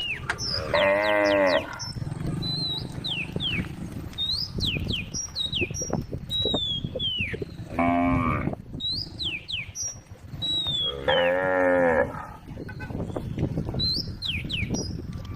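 Cows mooing: three long calls, about a second each, near the start, the middle and about two-thirds through, with short high chirps repeating between them.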